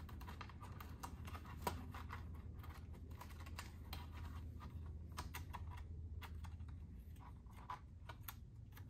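Hands fastening hook-and-loop Velcro straps of a plastic mudguard around a bike fork: faint, irregular small clicks and crackles, with one sharper click near the start.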